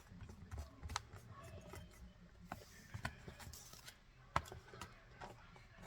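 Someone chewing chunks of cornstarch: scattered soft crunches and sharp clicks, with a brief crackling crunch in the middle and the sharpest click about four and a half seconds in.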